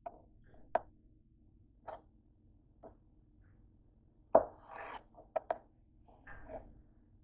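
A kitchen knife cutting a breaded chicken sandwich in half against a hard counter: scattered light taps and handling noises, then a sharp knock a little past the middle as the blade meets the surface, followed by a short crunching. More quick clicks and a brief rustle follow as the halves are moved.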